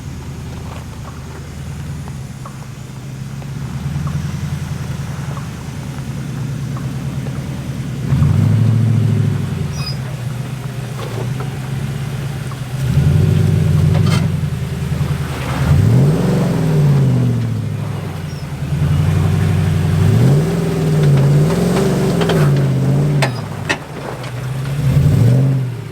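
A four-wheel-drive's engine working at low speed over rough off-road ground, revving up and easing off several times in the second half. A few sharp knocks cut through.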